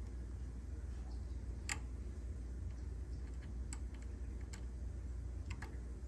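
Electric water heater tank filling with water: a steady low hum with a few scattered sharp ticks.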